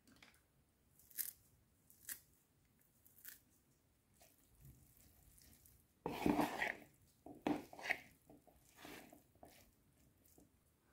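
A few quiet clicks, then from about six seconds in a metal spoon stirs a wet salad of canned tuna, chopped boiled egg, cucumber and dill in a plastic bowl: squishing and scraping, loudest at the start of the stirring.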